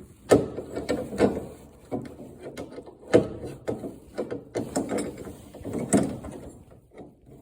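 Irregular metal clicks and knocks as a refrigerator door's hinge bracket and screws are handled and set in place, with a few sharper knocks among them.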